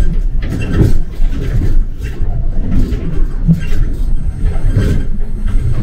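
City bus moving through traffic, heard from inside the cabin: a steady low engine and road rumble with irregular knocks and rattles.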